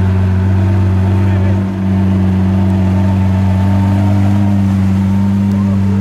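GAD twin-turbocharged Lamborghini Aventador LP700-4's V12 engine idling steadily, with a brief small dip a little under two seconds in.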